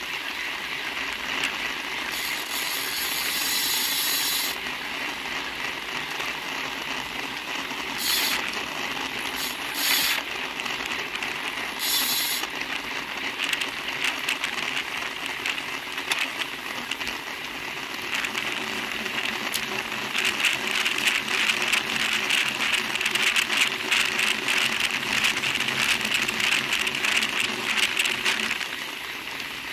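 Road bicycle freehubs ticking rapidly as riders coast in a racing bunch, over wind and tyre noise on the microphone of a bike-mounted camera; the ticking grows denser in the second half.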